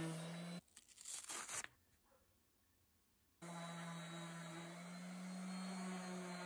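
DeWalt random orbital sander running steadily, sanding a mahogany board with an epoxy inlay. It stops abruptly about half a second in. A brief rustling clatter and about two seconds of near quiet follow, then the sander is running again and keeps on.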